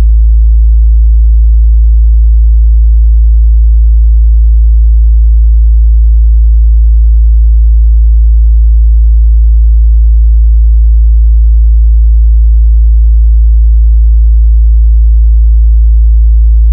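Very loud, deep sub-bass test tone: a single steady low pitch held without change, the bass-impact sound of a bass sound check.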